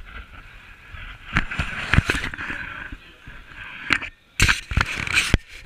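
Irregular knocks, thumps and rubbing: handling noise from a wearable action camera being jostled, with a close cluster of heavier thumps near the end.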